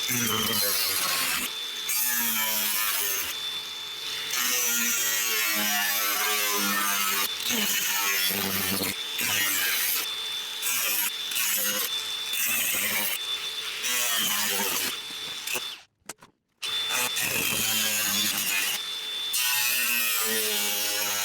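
Power tool cutting sheet steel, running in repeated stretches with short breaks, its motor pitch wavering under load. The sound drops out completely for a moment about three-quarters of the way through.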